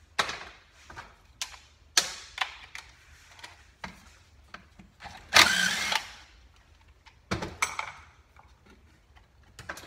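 Sharp metal clicks and knocks of tools and parts on a workbench. A little past the middle, a cordless power driver runs for about half a second, spinning out a 10 mm bolt on the ATV engine case.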